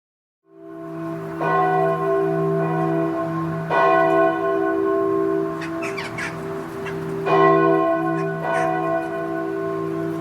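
A large bell ringing, struck about four times after a half-second of silence, each stroke's long, humming ring carrying into the next. A few short, high chirps come in about six seconds in.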